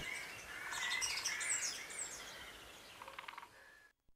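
Wild birds chirping and calling in woodland: a string of short, rising and falling chirps, with a quick rattling series about three seconds in. The sound cuts off just before the end.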